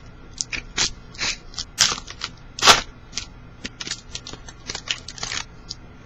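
Football trading cards being handled, a new pack opened and the cards slid and flipped apart: a run of irregular clicks and rustles, the loudest a little under 3 seconds in.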